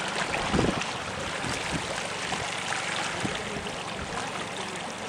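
Seawater washing and trickling over wet lava rock at the shoreline, a steady wash, with a brief low buffet of wind on the microphone about half a second in.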